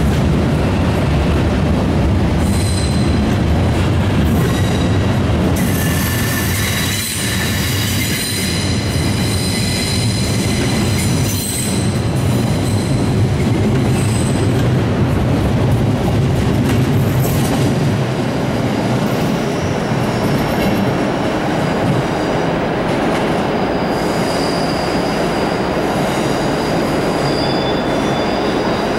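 FYRA passenger train's coaches rolling past and pulling away out of the station: a steady rumble of wheels on rail with a high, thin wheel squeal that carries on as the train draws off.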